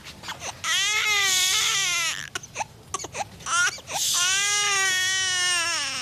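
A baby crying: two long wails with short sobbing catches of breath between them, the second wail falling in pitch at its end.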